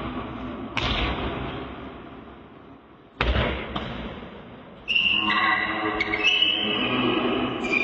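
A basketball thudding on the court in an echoing sports hall, two heavy bounces about a second and three seconds in, then a busier stretch of high squeaks and players' calls from about five seconds in.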